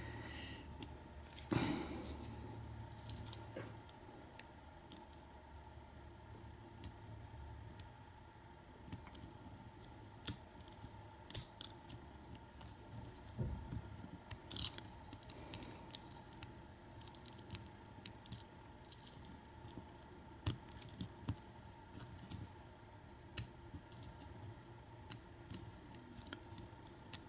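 A lock pick and tension wrench working the pins inside a pin-tumbler challenge lock, making scattered small metallic clicks and scrapes at an irregular pace. The lock sits in a deep false set, typical of security pins such as spools or T-pins.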